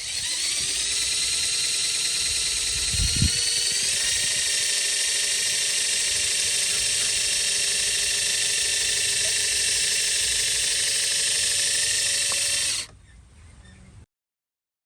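Small electric motor of an RC construction model running with a steady high whine, its pitch stepping up about four seconds in, then stopping suddenly near the end. A low thump sounds about three seconds in.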